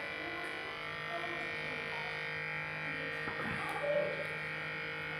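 Homemade electric balloon-inflating air pump running with a steady motor hum.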